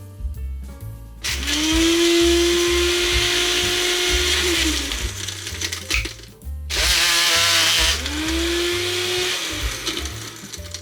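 Tenker 900W personal blender running in two bursts of a few seconds each. Each burst spins up to a steady whine and winds down as the cup is released, with background music underneath.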